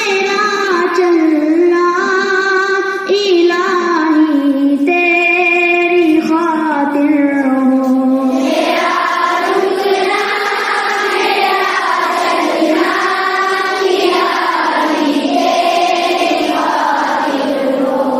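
Children singing: one voice holding long, steady notes at first, then a fuller group sound from about eight seconds in.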